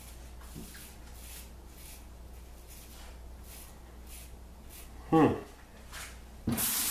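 Red Imp Wedge 132 straight razor scraping through lathered stubble in short, faint strokes. About five seconds in there is a brief falling vocal sound, and near the end a tap starts running into the sink.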